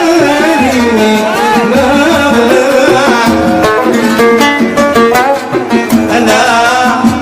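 Live Yemeni music: a melody on a plucked string instrument over a steady hand-drum beat.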